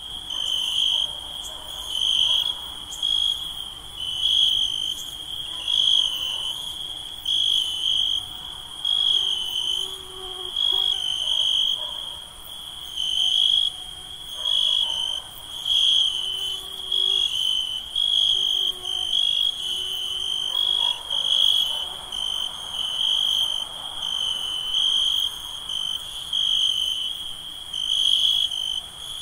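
Crickets and other night insects trilling in a steady, high-pitched chorus that swells louder about every second and a half.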